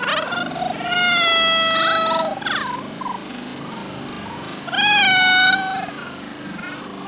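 Two long, high-pitched drawn-out calls, each held on one steady pitch. The first lasts about a second and a half and drops away at its end; the second, about a second long, comes near the middle.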